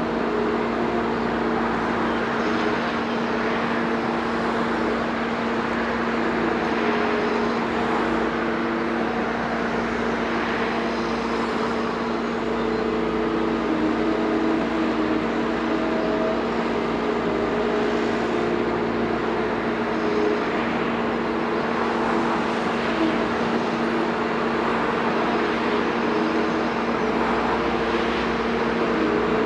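Diesel engine of a Liebherr 946 crawler excavator running steadily with a constant hum, its pitch shifting a little as the machine works.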